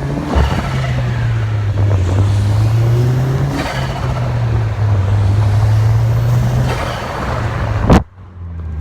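Hyundai Genesis Coupe 2.0T's turbocharged four-cylinder engine pulling under load, heard inside the car, with a short break about three and a half seconds in. Near the end a sharp loud burst, the HKS blow-off valve venting, then the sound cuts off suddenly.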